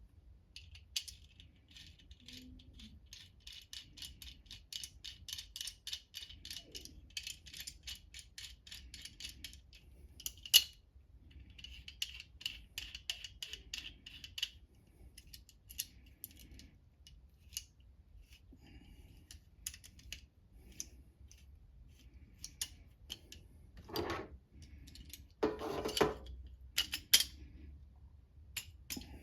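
Steel locking pliers being worked by hand: a fast run of small metallic clicks and scraping, then sparser clicks and a few sharper metal knocks near the end.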